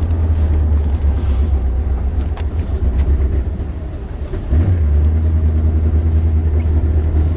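Chrysler Cordoba's 360 V8 heard from inside the cabin while driving: a steady low drone that sags for a moment about four seconds in, then comes back stronger.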